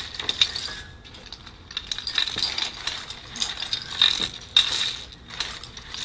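Rustling and light irregular clicks and clinks of hands working with tulle and small objects on a table.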